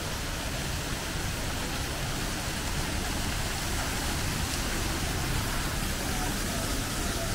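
Water from a large fountain splashing steadily into its pool.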